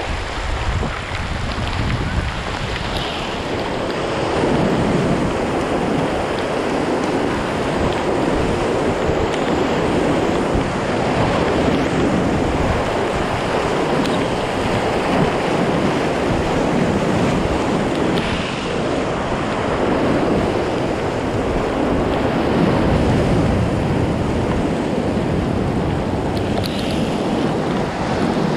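Whitewater rapids rushing and splashing around an inflatable kayak as it runs through breaking waves, a steady churning roar of water with spray hitting the boat.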